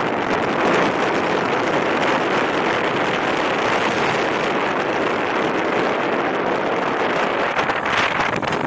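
Motorboat running at speed: a steady rush of wind on the microphone and water churning past the hull, with the engine blended into it.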